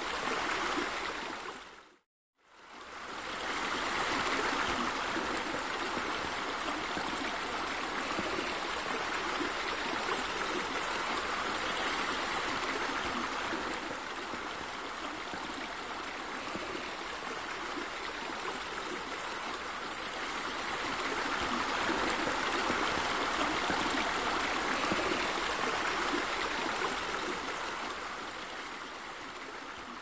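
Water running and splashing steadily, as from a small rock waterfall in a garden. It cuts out for a moment about two seconds in and swells back.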